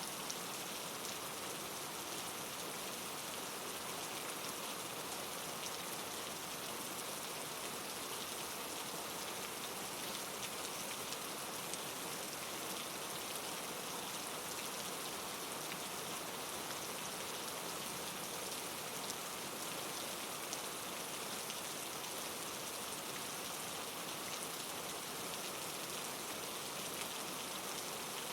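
Steady rain falling on a surface, an even hiss with fine pattering drops throughout.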